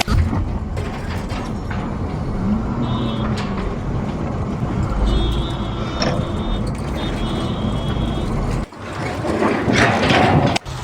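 An engine running steadily, cut off abruptly about nine seconds in and again just before the end.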